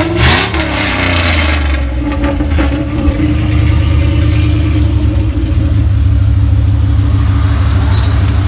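2000 Dodge Durango engine running through a muffler-deleted exhaust with only a gutted catalytic converter left, a loud growl. The revs rise briefly at the start, then it settles into a steady run.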